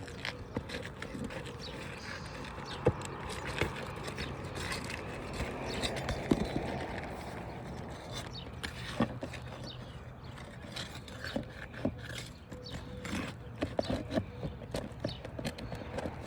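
Irregular scraping, clicks and knocks of a slender pry bar working against asphalt shingles and their fastening staples as a damaged shingle is worked loose and pulled out.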